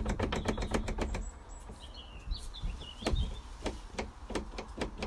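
A door being worked open with some struggle, its latch and frame rattling and clicking in quick succession at first, then knocking now and then. A bird chirps briefly about two seconds in.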